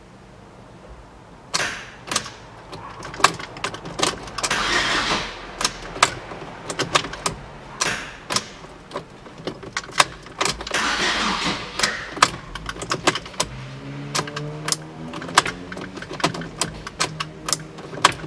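Starter motor cranking the Fiat Doblo's 1.3 Multijet diesel in two bursts of about a second and a half, around 4 s and 10 s in, without the engine catching, amid many sharp clicks and knocks. Air is still in the fuel injectors.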